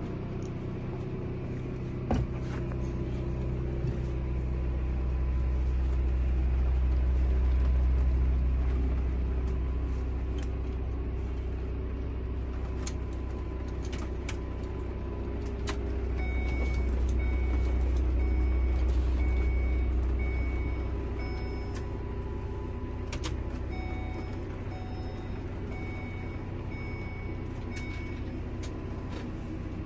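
Road noise inside a moving motorhome: a steady low rumble that swells twice, with scattered knocks and rattles from the fittings. In the second half come two runs of short, evenly spaced electronic beeps.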